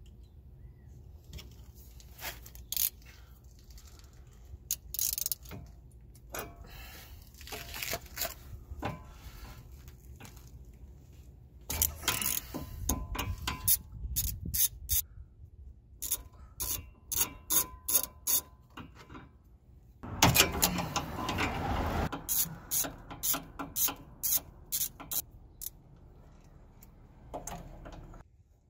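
Hand ratchet clicking in quick runs as it turns a socket on the inner CV axle flange bolts, loosening them, with a denser stretch of ratcheting and metal scraping about two-thirds of the way in.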